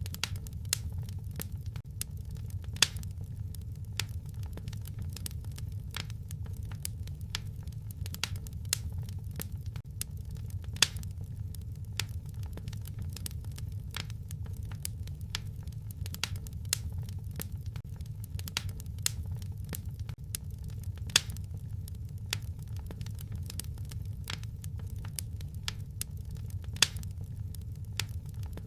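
Fire in a fireplace crackling: irregular sharp pops and snaps over a steady low rumble, with a few louder pops scattered through.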